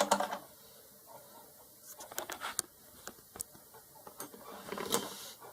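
Light clicks and taps of small items being handled and set down on a workbench, in a few scattered clusters with quiet between, and a short rustle near the end.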